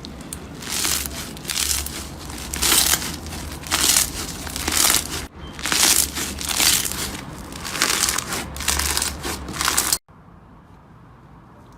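Crunchy slime being squeezed and pressed by hand, crackling and crunching in repeated bursts about once a second. The sound cuts off abruptly about ten seconds in.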